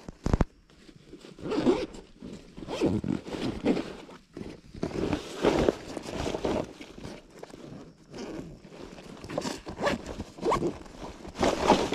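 Rustling and scraping of leaves and grass brushing against the microphone in irregular bursts, with some shuffling footsteps.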